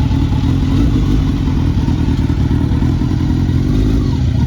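Motorcycle engine running at a steady speed, loud and close.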